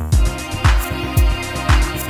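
Pop song playing: a steady drum beat with a low kick about twice a second and a sharper hit on every other beat, over sustained chords.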